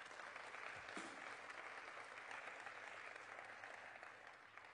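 Audience applauding, a steady patter of many hands that dies away near the end.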